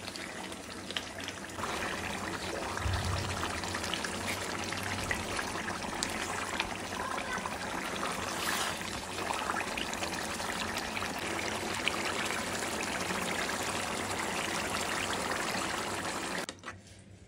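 Oily beef tripe curry bubbling as it simmers in a pan on a gas burner: a steady watery noise with small pops, which stops abruptly near the end.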